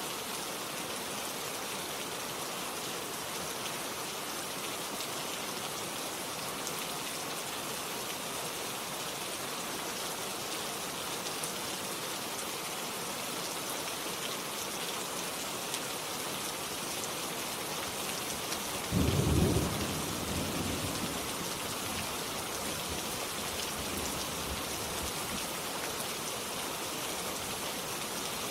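Steady rain falling. About two-thirds of the way through, a single loud clap of thunder breaks in and rumbles off over a couple of seconds.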